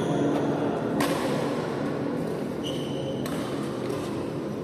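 Badminton hall ambience between rallies: a steady background din, one sharp knock about a second in, and a brief high squeak a little before halfway.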